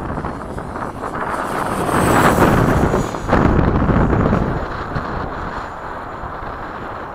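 Freewing 80mm electric ducted-fan F-5 RC jet on its FMS 2100KV motor making a fast pass: the fan's rush builds to its loudest about two to four seconds in, with a high whine falling in pitch, then fades. Wind buffets the microphone throughout.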